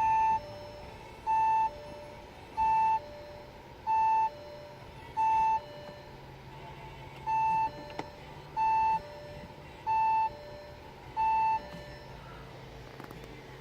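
Audi A3 parking-sensor warning beeps: a loud beep followed by a fainter, lower beep, the pair repeating about every 1.3 seconds. There is one longer gap midway, and the beeping stops near the end, leaving a low steady hum.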